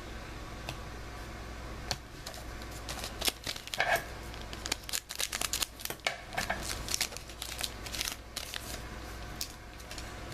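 Panini basketball card pack being handled: the wrapper crinkles and the cards rustle and snap in a run of quick irregular sounds through the middle of the stretch.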